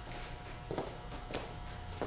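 A few scuffing footsteps on a shop floor over a low steady hum.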